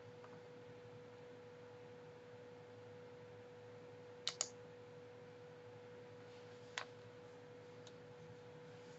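Computer mouse clicks: a quick pair about four seconds in, then a single click near seven seconds and a fainter one just after, over a faint steady hum.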